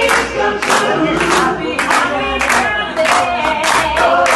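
Several voices singing together over rhythmic hand clapping, about two to three claps a second.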